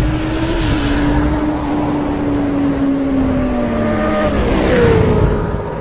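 Motorcycle engine sound effect running at high revs, holding a steady pitch that sags slightly, then shifting to a new pitch near the end.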